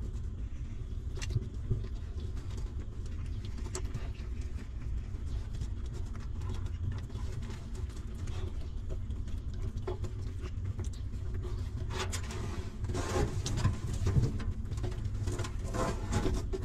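Newborn puppies nursing and giving soft whimpering, cooing calls, busier in the last few seconds with more squeaks and scuffling as they shift against the mother dog. A steady low rumble runs underneath.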